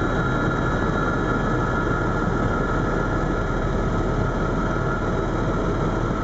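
Eurocopter EC130 Ecostar helicopter in flight heard from inside the cabin: a loud, steady rotor and turbine noise with a faint high steady whine over it.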